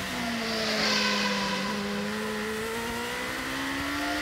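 Onboard sound of a 2008 GP2 race car's Mecachrome 4.0-litre V8 accelerating down a straight: an upshift right at the start drops the engine pitch, which holds fairly level and then climbs steadily through the second half.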